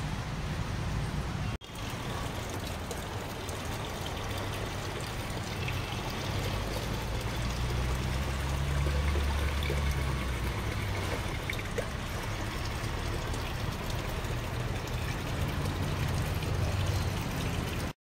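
Water running and trickling across wet garden soil, steady throughout, with a low rumble beneath it that swells around the middle. The sound drops out for an instant about one and a half seconds in.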